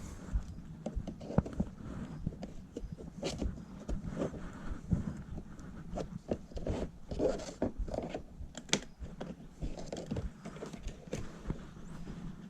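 Plastic window-switch bezel on a Ford Mustang S550 door being worked loose from its clips: irregular clicks, scrapes and creaks of plastic trim.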